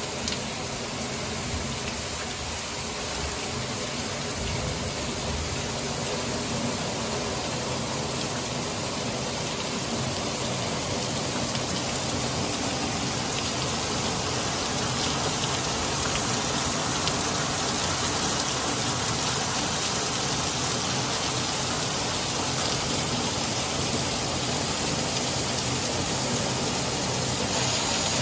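Torrential rain pouring onto a flooded paved driveway and street: a dense, steady hiss of falling water that grows slightly louder over the clip.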